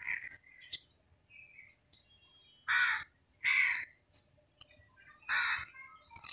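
A crow cawing three times, each caw short, over faint small-bird chirps.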